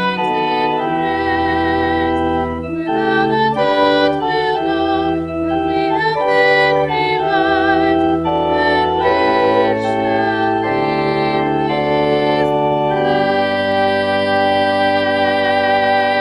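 Church organ playing the closing phrase of a hymn in slow sustained chords, settling about 13 seconds in on a long held final chord.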